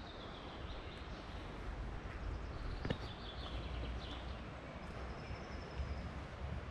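Small birds singing: several short high chirps and a thin high trill about five seconds in, over a steady low outdoor rumble. One sharp click about three seconds in.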